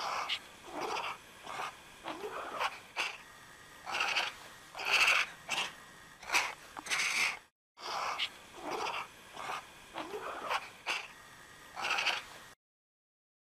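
Serval giving a run of short, breathy, hissing calls, about one or two a second, which cut off near the end.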